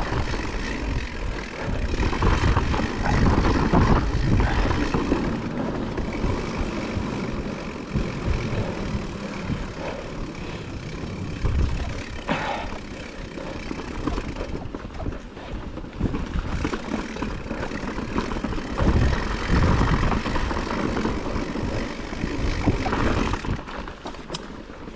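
Blizzard wind gusting against the microphone: a loud, rough rumble that swells and eases in gusts, with hissing blown snow above it.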